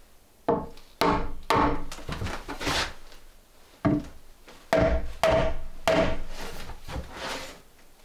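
A series of sharp, irregular knocks or strikes, each ringing briefly with a clear pitch before dying away.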